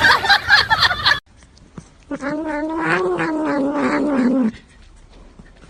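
A cat yowling: one long drawn-out call of about two and a half seconds, rising slightly in pitch and then falling away.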